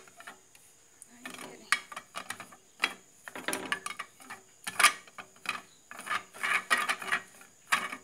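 Black plastic threaded base of a blender jar being turned onto the jar by hand: irregular clicks, rubbing and scraping of the plastic threads, the sharpest click about five seconds in.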